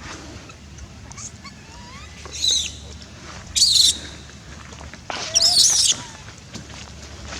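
Baby monkey screaming in three high-pitched wavering shrieks, the last the longest at about a second: a hungry infant crying for food.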